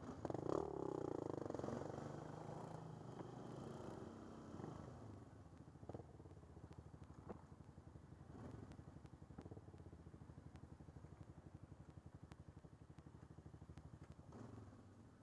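ATV engine running louder for the first couple of seconds, then settling to a steady throbbing idle, with a few light clatters.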